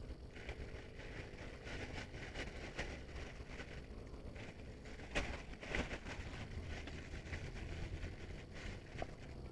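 Rain pattering steadily, with wind on the microphone, and two louder knocks a little past halfway.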